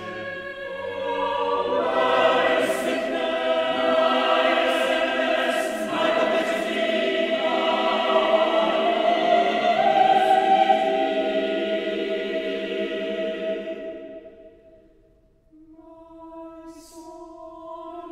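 Mixed choir singing a slow sacred choral piece in a large church: sustained chords swell loud about two seconds in, then die away to near silence around fifteen seconds before the voices come back in softly.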